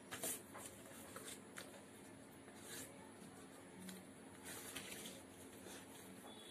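A sheet of origami paper faintly rustling and crinkling as it is folded and creased by hand on a wooden desktop, in short scattered rustles, the loudest about a quarter second in.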